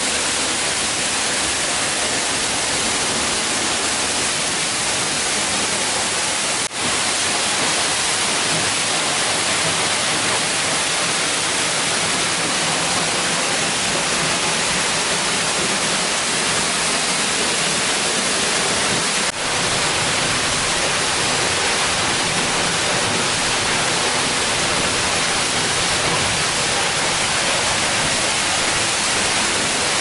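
Waterfall pouring off a rock overhang: a steady, loud rush of falling water. It dips for an instant twice where the recording is cut.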